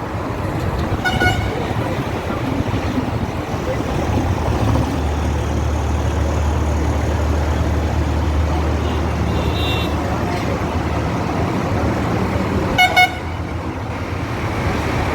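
Road traffic: engines running with a low rumble that swells in the middle as a heavier vehicle goes by, and short vehicle horn honks about a second in and twice quickly near the end.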